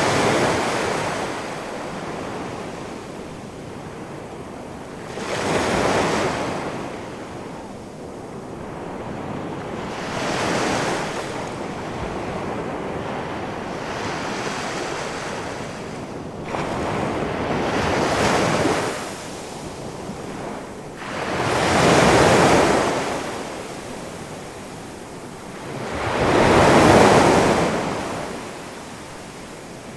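Big ocean waves rolling in and crashing on the shore, each breaker swelling into a loud rush and washing back, about every four to five seconds, over a steady surf hiss with some wind.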